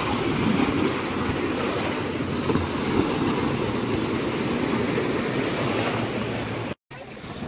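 Small waves breaking and washing over the shallows at the water's edge: a steady rushing with a low rumble under it. It cuts off abruptly near the end.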